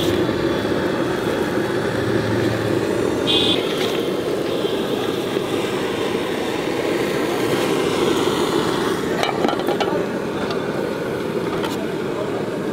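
Steady hum of a busy street with traffic. About nine seconds in come a few short metallic scrapes and clicks of a spatula on an iron frying pan as an omelette is lifted off.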